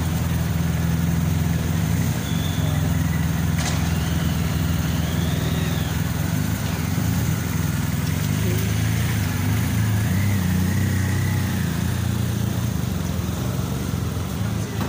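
Car engines idling and moving off at walking pace close by, a steady low hum; the nearest is a black Mercedes-Benz S-Class saloon pulling away.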